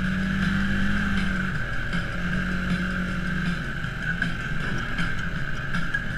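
Side-by-side off-road vehicle's engine running steadily as it drives a rough, muddy trail, with a steady high whine over the engine and light knocks from the bumps.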